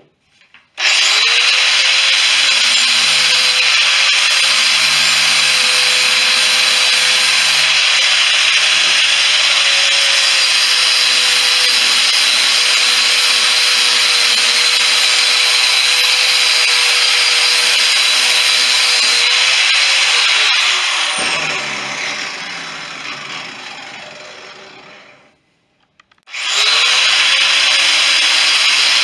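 Electric grinder starting up and running hard with a loud, steady hiss of abrasive on metal. It is switched off about twenty seconds in, its pitch falling as it winds down over several seconds, then it starts again near the end.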